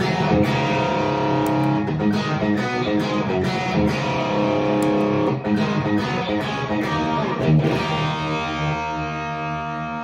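Electric guitar, a Stratocaster with single-coil pickups, played through the Fat Monday overdrive with the Wolf Cub volume boost engaged into a Marshall amp. A run of driven picked notes and chords ends on a chord left ringing and slowly fading for the last couple of seconds.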